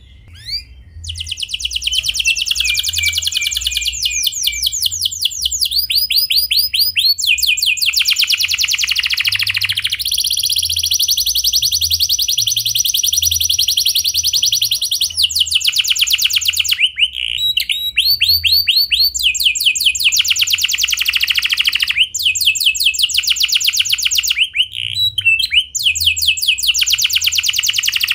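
Domestic canary singing without pause, a long song of rolling trills: rapid runs of repeated notes in phrases of one to a few seconds, each phrase at a different pitch.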